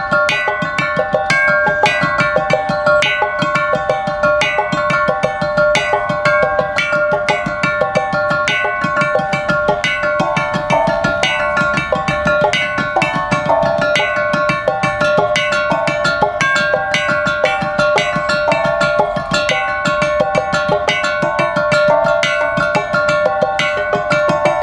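A sound installation of square metal tubes laid out like a xylophone on wooden trestles, struck with mallets by two players: a fast, steady stream of ringing metallic notes in repeating patterns.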